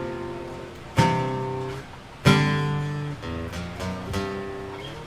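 Acoustic guitar played solo: two strummed chords, each left to ring and fade, then a short run of lighter single notes.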